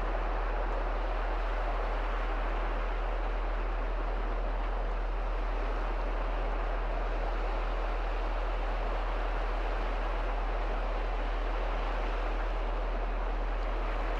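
Small Baltic Sea waves washing into the shallows at a river mouth: a steady, even wash of surf noise with a constant low rumble underneath.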